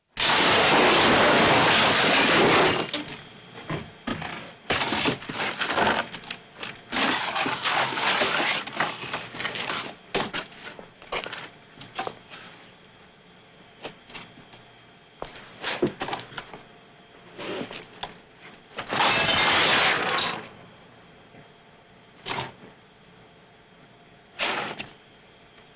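Foley props smashed and struck for a fight sequence: a long breaking crash for a table smash, then a run of knocks, thumps and cracks. A second loud crash comes about three-quarters of the way in, and a few light taps near the end.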